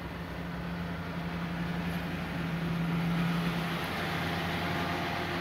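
Oncoming Volvo semi-truck's diesel engine passing close alongside at low speed, heard through the windscreen of a stopped truck cab: a steady engine hum that grows louder to a peak about halfway through, then eases off as the trailer goes by.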